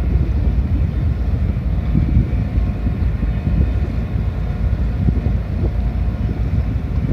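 Ferry's engines running with a steady low rumble and a faint machinery whine as the ship manoeuvres in port, with wind buffeting the microphone.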